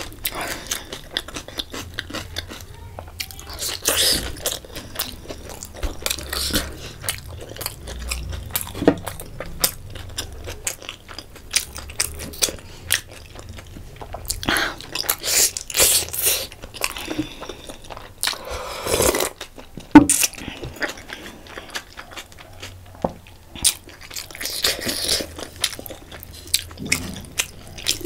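Close-miked eating of a chicken momo: biting and chewing with wet mouth smacks and small clicks in an irregular run, and one sharp click about two-thirds of the way through.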